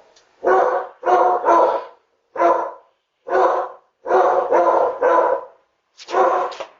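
Dogs barking in a run of about nine loud barks, some in quick pairs, heard through a Ring video doorbell's microphone.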